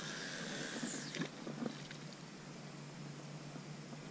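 Baitcasting reel's spool whirring as line pays out on a cast, the whir falling in pitch over about a second and ending with a couple of short clicks.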